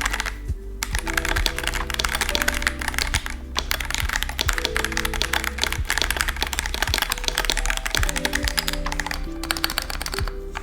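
Fast, continuous typing on a KBD67 Lite R4 gasket-mounted mechanical keyboard with unlubed switches, stock stabilizers and PBT keycaps, its keystrokes clear and poppy. Background music with a steady beat plays under it.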